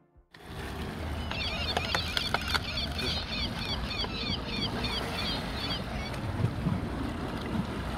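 Open-sea ambience of wind and waves that starts suddenly just after the beginning as a steady wash. Between about one and six seconds in, a run of short high squeaks comes about three a second, with a few knocks early in that run.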